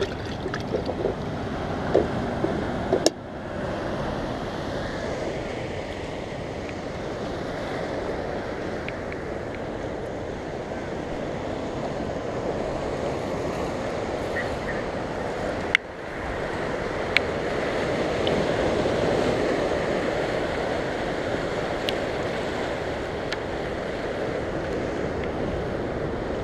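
Surf washing steadily onto a rocky shore, mixed with wind buffeting the microphone. A few short sharp clicks come through, and the sound breaks off abruptly twice.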